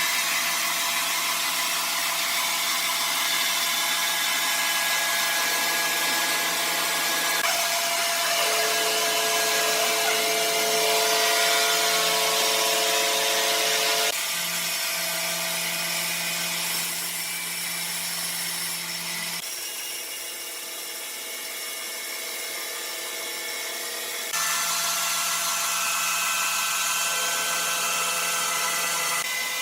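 Sawmill machinery running and cutting wood: a steady mechanical whine with a hiss over it. The sound changes abruptly about halfway through, again a few seconds later, and near the end.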